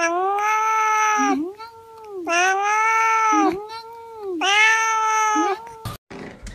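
A white fluffy pet howling in long drawn-out calls: three long wavering cries of about a second each, joined by shorter, lower calls. The sound cuts off abruptly near the end.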